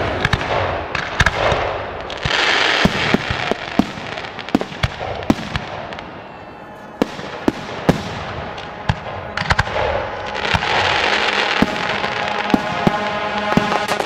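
Aerial fireworks display: a rapid irregular string of sharp bangs from shells bursting overhead. Dense crackling comes in twice, about two seconds in and again around ten to twelve seconds, with a short quieter lull in between.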